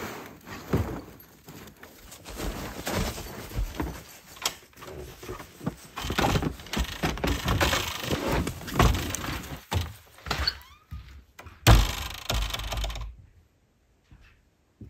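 Gear being unloaded from a plastic sled and a plastic storage bin carried through a doorway: irregular rustling, clatter and knocks, with one loud thunk near the end before the sound drops away.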